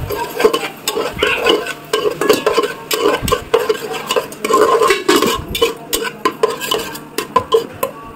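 Steel spatula scraping and stirring a thick curry masala around an aluminium pot, in repeated strokes of about two a second, with metal clicking on the pot's side.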